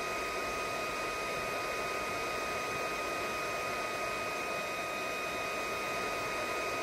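A 110-volt handheld induction heater running under load: a steady fan rush with a constant high whine as its coil heats a steel nut red hot to free it from the bolt.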